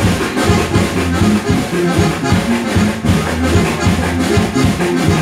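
Live band playing upbeat music with a steady beat: accordion, electric guitar, bass guitar, congas and drum kit.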